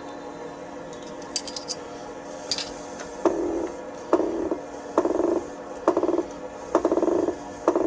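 Mini lathe's four-jaw chuck being set up by hand: a few sharp metal clicks as a spanner works the jaw screws, then short whirring bursts about once a second as the chuck and its gearing are turned over by hand, checking whether the work runs true. A steady hum sits underneath throughout.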